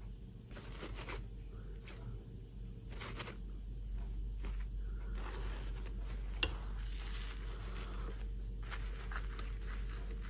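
Rustling and scraping of plastic fashion dolls and their fabric dresses being handled, in irregular bursts, with one sharp click about six and a half seconds in, over a steady low hum.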